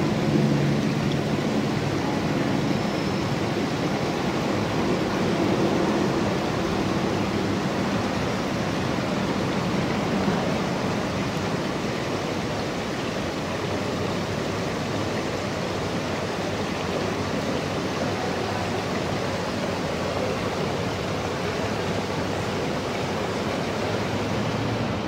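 Water running steadily in a thin sheet over a flat stone water feature and spilling into its edge channel: an even, continuous hiss.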